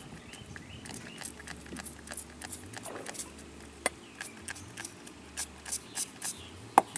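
Hand stirring fish-feed pellets in a stainless steel bowl: the pellets rattle and tick irregularly against the metal, with one sharper click near the end.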